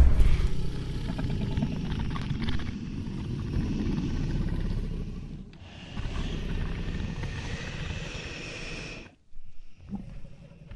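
A steady low rumbling noise with a hiss over it. It dips briefly about five and a half seconds in and stops about nine seconds in.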